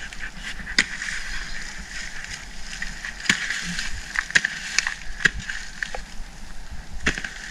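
A long-handled hoe chopping and scraping into loose, leafy soil, with about six irregular dull strikes over a steady high-pitched background drone.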